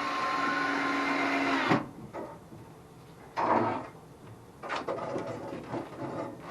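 Power drill driving a screw into wood: the motor runs steadily for almost two seconds and stops with a click, a second short run follows a couple of seconds later, then a few knocks and handling noises.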